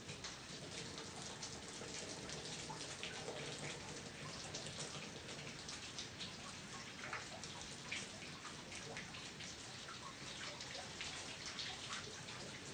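Thin jet of water from a Suzuki 2.5 hp outboard's telltale outlet spattering down, a steady patter of drips and splashes like light rain.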